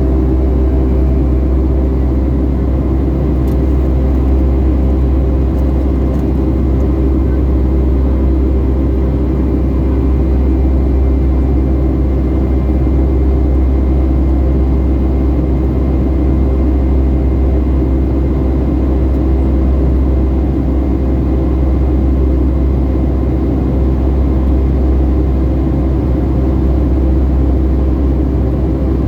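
Boeing 757-300 jet engines heard from inside the passenger cabin: a loud, steady low rumble with a constant hum, unchanging throughout.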